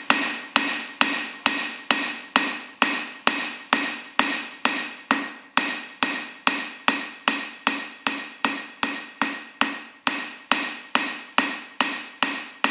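Hand hammer striking a red-hot steel bar on an anvil in a steady rhythm, a little over two blows a second. Each blow rings out and the ring carries between strikes as the end of the bar is hot-forged into a flare.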